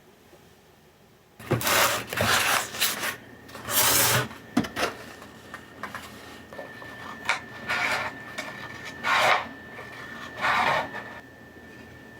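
A series of rasping, rubbing strokes in separate bursts, the longest near the start, with a thin steady high tone joining about halfway through.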